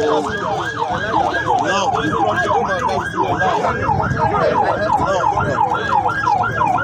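Emergency vehicle sirens in a fast yelp, the pitch sweeping up and down about three times a second, with more than one siren overlapping.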